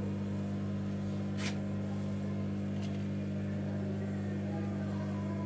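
Steady low hum made of several even tones, with a faint tick about one and a half seconds in.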